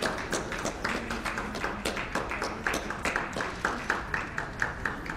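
Spectators clapping in a steady rhythm, about three claps a second, for a dog moving around the show ring.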